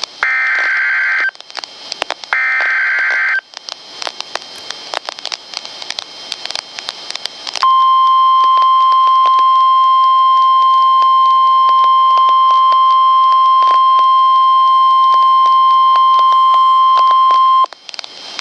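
NOAA Weather Radio broadcast of a tornado warning: two one-second bursts of warbling SAME digital header tones, then crackly radio static. About seven and a half seconds in, a steady 1050 Hz warning alarm tone sounds for about ten seconds and then stops, signalling that a warning message follows.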